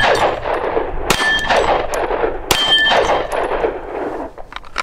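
Two 9mm pistol shots about a second and a half apart, each with a steel plate target ringing with a clang and a long echoing tail; a shot just before rings on into the start.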